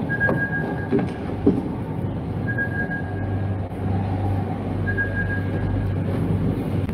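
Sci-fi film sound effects played over large hall speakers: a steady low drone under a high electronic beep about a second long that repeats roughly every two and a half seconds, like a tracking device's locator signal, with two soft knocks about a second in.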